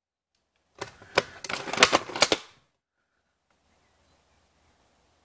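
Airsoft rifle being recocked between shots: a quick run of mechanical clicks and clacks lasting about a second and a half, starting about a second in.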